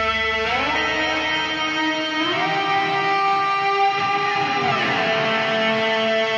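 Heavy metal song with electric guitar holding a sustained note that slides up in pitch about half a second in and again about two seconds in, holds, then slides back down near the five-second mark.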